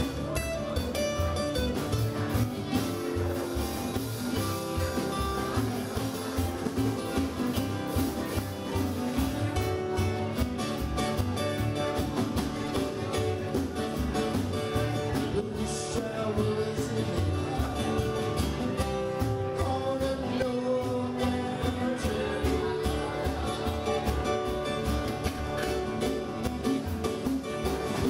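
Live band playing: strummed acoustic guitars over a steady drum beat, with a voice singing.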